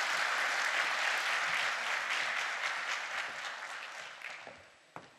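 Audience applauding, the clapping dying away over the last second or so, with one sharp knock just before it ends.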